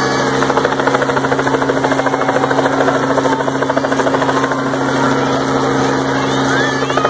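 Light two-bladed helicopter hovering close overhead, its main rotor beating in a steady, rapid pulse over the even drone of the engine.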